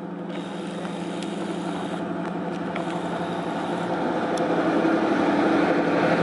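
EP05 electric locomotive approaching slowly along the platform, a steady mechanical hum that grows louder as it draws alongside.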